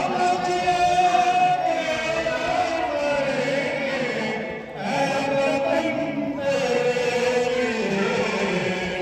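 Voices singing in long, held, chant-like lines, with brief pauses for breath about halfway and near the end.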